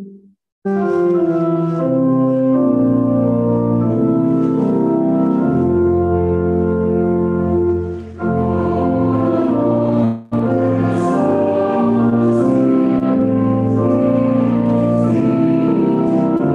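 Church organ playing slow offertory music in sustained chords. It starts about a second in and breaks off briefly twice, at about eight and ten seconds.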